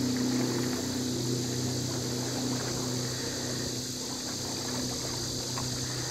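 A steady low motor hum that holds one even pitch.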